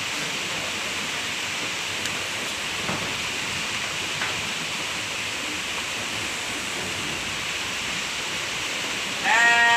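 Steady hiss with a few faint clicks, then near the end a sheep bleats loudly in one long call.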